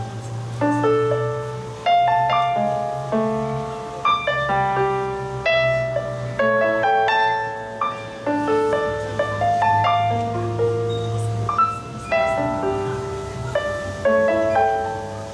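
Casio digital keyboard played in a piano voice: chords and a melody of struck, fading notes in the song's instrumental closing passage, with no singing.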